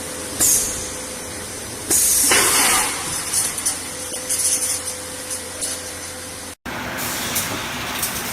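Dish-end forming machine for solar water heater outer tanks running with a steady hum and bursts of hissing. The loudest hiss comes about two seconds in and lasts about a second, followed by smaller hisses. The sound cuts out for an instant near the end.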